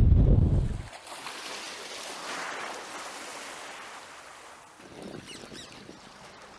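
Wind buffeting the microphone over rough sea, a heavy low rumble that cuts off abruptly about a second in. What follows is a much quieter, even hiss of open-air ambience that slowly fades.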